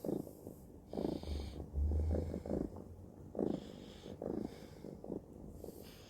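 Domestic cat purring close to the microphone, in a steady rhythm of pulses that rise and fall with each breath. A low rumble, stronger than the rest, sits under the purring from about one to two and a half seconds in.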